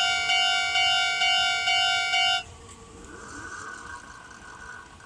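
Japanese level-crossing warning bell clanging in a steady electronic 'kan-kan' about twice a second, then stopping abruptly about two and a half seconds in. This is the sign that the train has cleared the crossing. Only a faint background remains after it stops.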